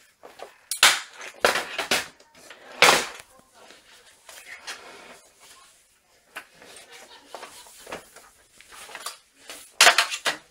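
Handling noise of a metal desktop computer case and its power cables: sharp clattering knocks and rattles, loudest in the first three seconds and again near the end, with lighter clicks in between.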